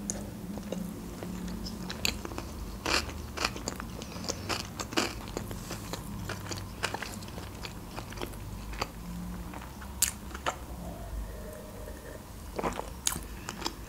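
Close-miked chewing of a sushi roll: wet mouth clicks and smacks, irregular and scattered. Near the end comes a sip from a glass.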